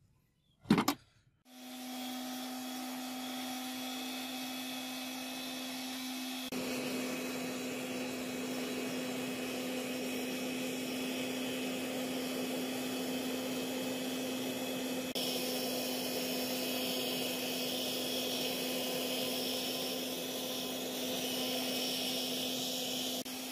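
Homemade gas forge running with a steady roar and a constant hum while it heats a steel sword blade for normalizing. A short sharp knock comes just before it starts, and the roar steps louder about six seconds in.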